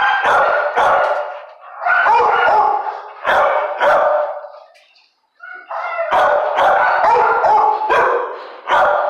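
Dog barking in repeated loud runs of barks, with a break of about a second halfway through.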